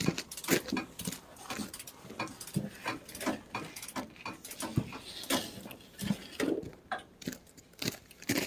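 A dog handling and mouthing a piece of wood: a run of irregular soft clicks and knocks, several a second.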